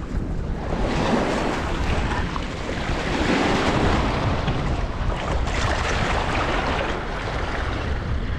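Wind rumbling on the microphone, with water washing at the edge of a rocky shore.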